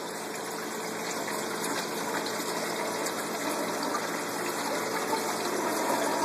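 Water running steadily with a low pump hum, growing slightly louder toward the end.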